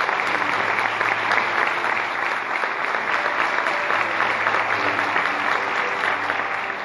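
A congregation applauding: a steady round of many hands clapping, easing off slightly near the end.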